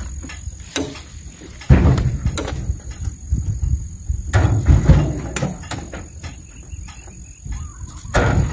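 Oil palm fruit bunches thrown by hand into a steel dump-truck bed, landing with heavy thuds and knocks at irregular intervals, about seven in all.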